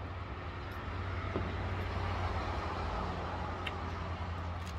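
Steady low rumble of road traffic, swelling slightly midway, with a couple of faint clicks.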